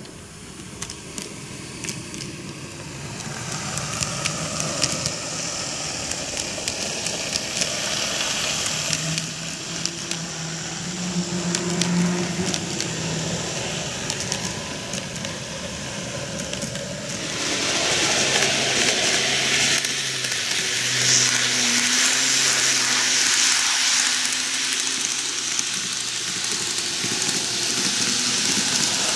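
N-gauge model electric trains, JR 485 series and E653 series, running on superelevated track: a steady rattle of wheels on rail with fine clicking and a low motor hum. It grows louder about 3 s in and again about 17 s in as the trains pass close.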